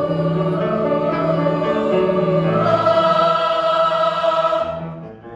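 Choir singing long held chords that swell to a brighter, higher chord about midway, then fade away near the end.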